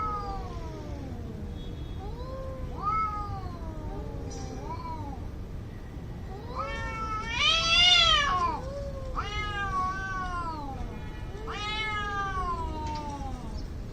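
Two cats yowling at each other in a fight standoff: a string of long, wavering calls that rise and fall in pitch, one after another, the loudest about eight seconds in.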